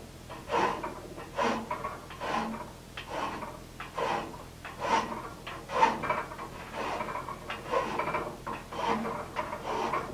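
Hand file rasping back and forth across an unhardened 4140 steel cutoff die clamped in a bench vise, in steady strokes about one a second. The file is bringing the angle-ground cutting edge closer to sharp and pushing the die's legs back.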